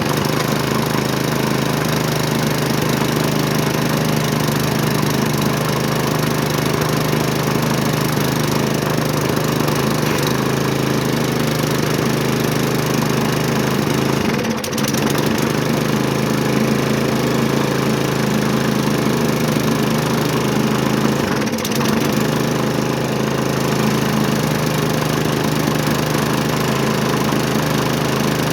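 Briggs & Stratton single-cylinder engine on a Hyper Tough push mower running steadily just after firing up on the pull, with no blade fitted. Its note wavers briefly twice, about midway and about two-thirds through.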